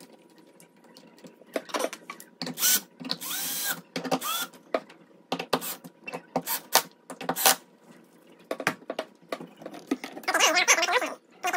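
Irregular clicks, knocks and short scrapes of hand tools and metal lock hardware being handled and fitted into a door.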